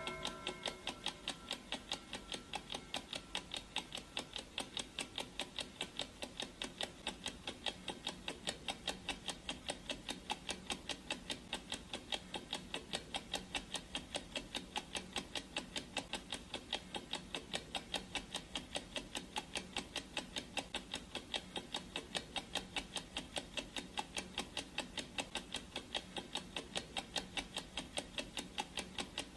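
Clock ticking sound effect: an even, steady tick-tock that keeps on without a break. In the first second the last of a gong's ringing dies away under the ticks.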